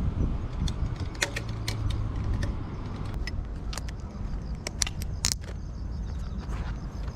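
A Honda Super Cub 90's single-cylinder four-stroke engine running while the bike is ridden, as a steady low hum that eases off after about three seconds. Many sharp clicks and rattles are scattered over it.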